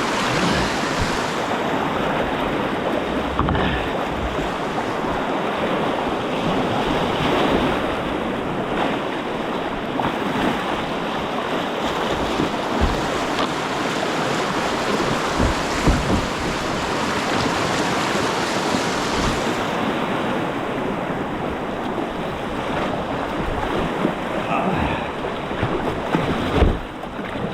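River whitewater rushing steadily through a rapid, close to the microphone, with a few low thumps on the microphone, the loudest near the end.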